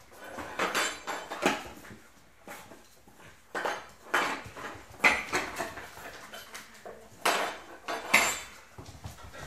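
Smooth Collie puppies' paws scrabbling on a wooden floor and knocking against wooden kitchen cabinets: irregular sharp clatters, about six of them, with softer scuffling between.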